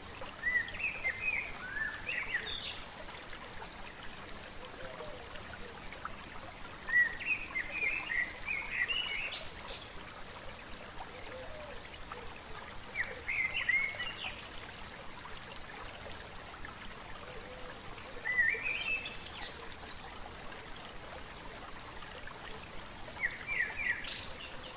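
Running water trickling steadily, with a small bird singing short chirping phrases about every five seconds, five times.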